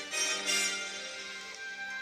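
Film score music with held, overlapping notes, and a short burst of hiss at the start.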